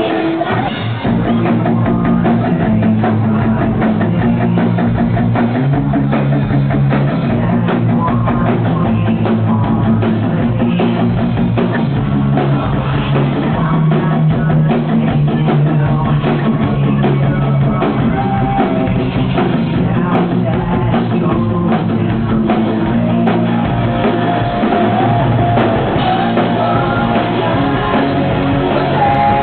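Live rock band playing: drum kit and electric guitars driving a steady beat, with a lead singer.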